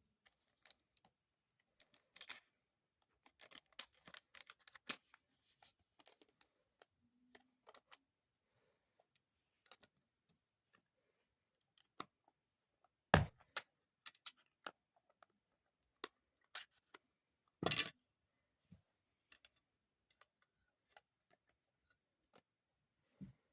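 Unboxing handling noise from a remote and its packaging: scattered light clicks, taps and rustles, with two louder knocks, one about halfway through and another about four seconds later.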